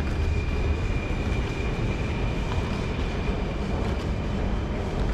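Singapore MRT train rumbling steadily behind the platform screen doors, with a thin high whine from the train that fades out about three seconds in.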